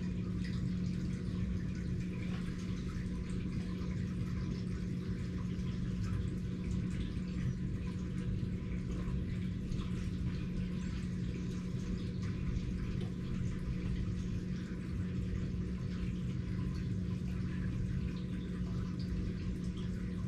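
Steady background hum with a constant low tone and an even, trickling hiss.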